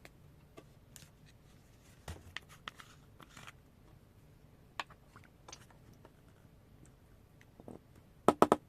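Small objects being handled on a work surface: scattered light clicks and taps, then a quick run of three or four loud knocks near the end.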